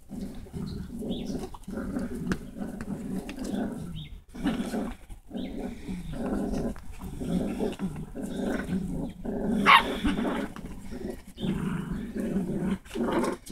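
Dachshund puppies growling in play as they tug at a stuffed toy: low rumbling growls over and over, with short pauses. A short, high-pitched squeal about ten seconds in is the loudest sound.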